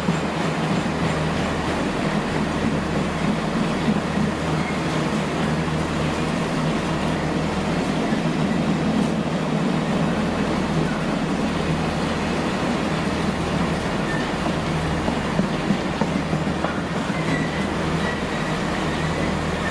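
Heavy freight train rolling past, its long rake of wagons making a steady rumble on the rails. A low pulse beats about once every second and a bit as the wagons go by.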